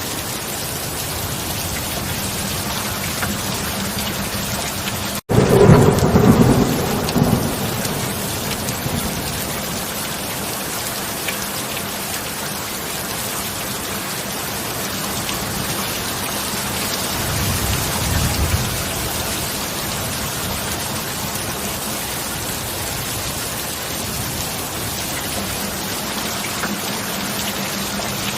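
Steady heavy rainfall. About five seconds in, a loud thunderclap breaks in right after a split-second gap in the sound and rumbles for about two seconds. A softer low rumble of thunder follows about two-thirds of the way through. Underneath runs a faint steady low tone, the mixed-in binaural beat.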